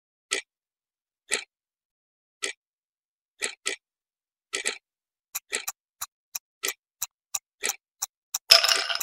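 Clock-style countdown timer tick sound effect: about one tick a second, quickening to about three ticks a second over the last few seconds, with a louder rattling burst near the end.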